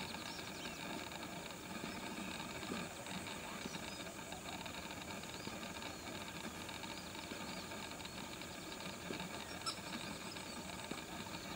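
Outdoor wetland ambience: a steady hiss with many faint, high chirping bird calls. A sharp click comes near the end.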